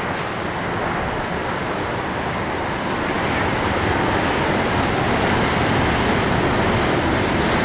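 Steady roar of heavy storm surf breaking on the shore, mixed with wind, growing a little louder about three and a half seconds in.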